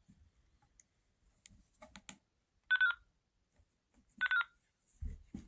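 DMR handheld radio giving two short electronic beeps about a second and a half apart, with a few faint clicks before them and low thumps near the end.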